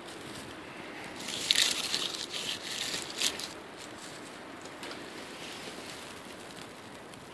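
Small wood fire in a gasifier stove crackling softly. A burst of crinkling and snapping comes between about one and three seconds in, as twigs and bark are pushed into the flames by hand.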